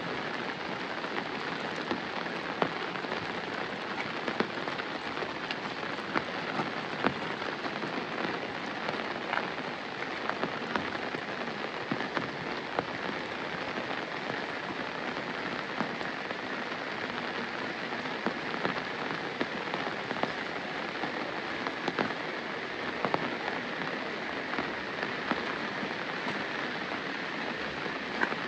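Steady rain falling, with scattered sharper drops tapping on an umbrella overhead.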